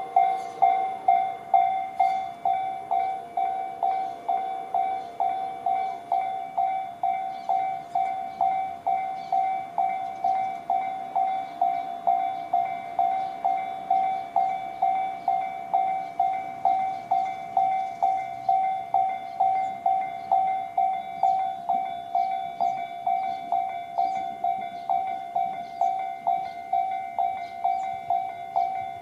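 Japanese railway level-crossing warning bells, the electronic 'Tobu sound C' type used on both sides of the crossing, ringing in a steady rhythm of just over two strikes a second.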